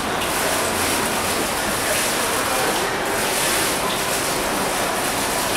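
Steady hiss of water falling in a curtain of timed drops from a digital water-curtain clock and splashing into the basin below.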